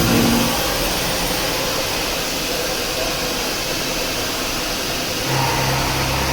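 CNC machine running while machining a hydraulic pump housing: a steady hiss, with a low hum joining about five seconds in.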